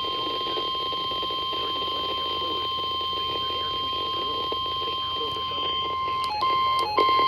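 NOAA Weather Radio's 1050 Hz warning alarm tone, one steady electronic tone that signals an urgent warning is about to follow. About six seconds in, louder on-and-off beeping cuts in over it.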